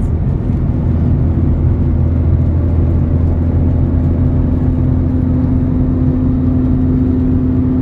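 VAZ 2111's engine and exhaust droning steadily inside the cabin while cruising on a highway, over tyre and road noise. The drone's pitch rises slightly toward the end.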